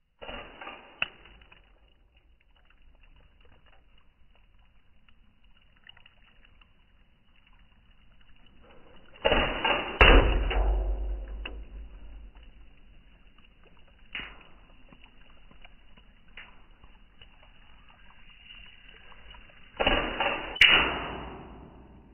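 Air gun shots at drink cans and water balloons: single sharp cracks about a second in, a few through the middle and near the end. The two loudest, near the middle and near the end, each come with about a second of rushing noise around the crack.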